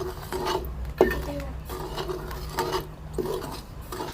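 Metal khurchna (flat scraper) stirring and scraping semolina as it roasts in a kadhai: repeated scraping strokes against the pan, with a sharper knock about a second in.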